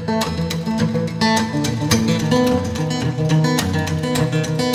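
Acoustic guitar playing a brisk run of plucked notes at a steady, lively pace.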